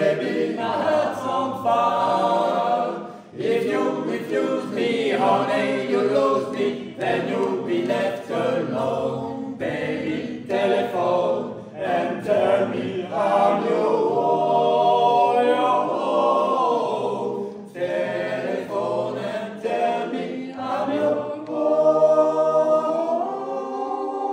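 A small male vocal group singing a cappella in harmony, phrase after phrase with short breaks, settling on a long held final chord near the end.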